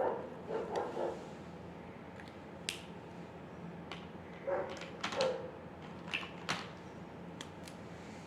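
A dog making short, pitched yelps in small clusters, at the very start and again around the middle, along with a few sharp clicks.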